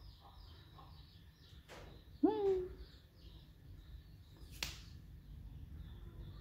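Faint birds chirping in the background. About two seconds in there is one short vocal sound that rises in pitch and then holds, and about four and a half seconds in there is a single sharp click.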